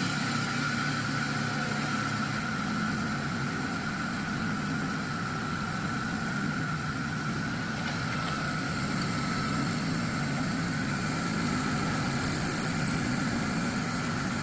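Electric drill running steadily while boring holes in a wooden board, with a constant motor whine. A brief high whistle sounds near the end.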